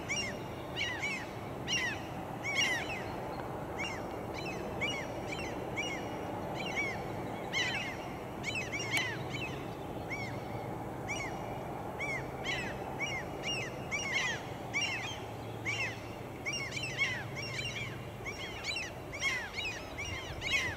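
Birds calling over and over with short, arched chirping notes, one or two a second, over the low, steady rumble of a distant freight train rolling away.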